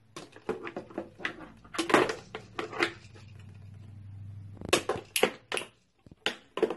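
Irregular clicks, taps and crackles as a baby handles a small object against the plastic tray and bowl of her high chair, coming in clusters with a pause in the middle.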